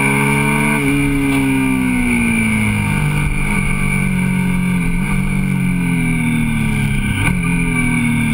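Motorcycle engine heard onboard while riding, its pitch sinking slowly as the revs fall, with brief dips and rises about five and seven seconds in.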